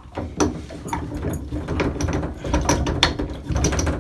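Metal handle puller clicking and rattling as it is worked on and taken off a stuck shower valve handle, a dense run of small metallic clicks.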